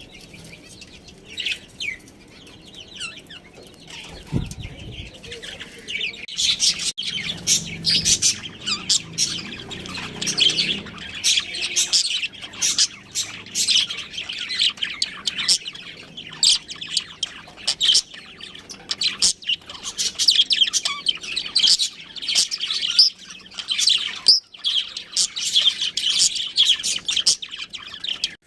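Budgerigars chirping and chattering: sparse calls at first, then a dense, continuous twittering from about six seconds in. A dull low thump comes about four seconds in.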